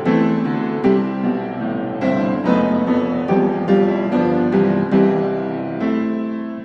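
Piano music, a calm run of notes struck one after another.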